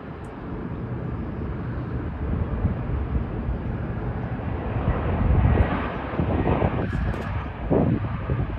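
Spirit Airlines jet airliner on landing approach, its engine noise building to a peak about two-thirds of the way through, with a low rumble throughout.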